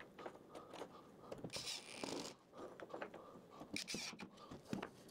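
Faint, intermittent scraping and rustling with light clicks and knocks: small timber blocks being handled and slid into place on an MDF board.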